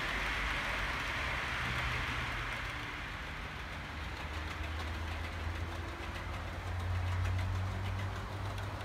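OO gauge model trains running on the layout's track. A hiss of wheels on the rails fades after about two seconds, then a low steady engine hum grows louder about seven seconds in as a model HST comes by, with faint clicks over the rail joints.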